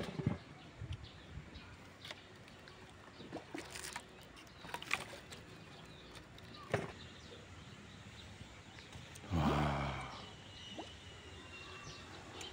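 Quiet outdoor ambience with small birds chirping, a few light knocks and clicks, and about nine seconds in a short, low, rough voice-like grunt that is the loudest sound.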